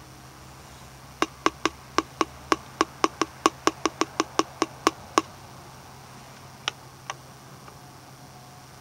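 Fingertip tapping on the glass of a motorcycle's instrument gauges: a quick run of about eighteen sharp taps, roughly four a second, then two more taps after a short pause.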